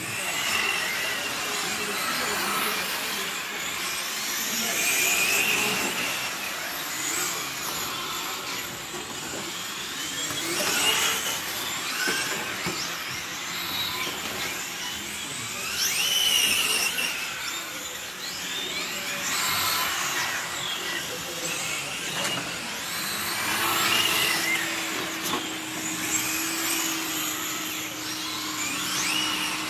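Several 1:8 electric GT radio-controlled cars lapping the track, their brushless motors whining, rising and falling in pitch every few seconds as they speed up, brake and pass. A steady low hum comes in for the last few seconds.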